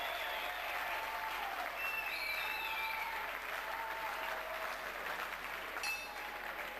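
Arena crowd applauding steadily, with scattered voices calling out over it.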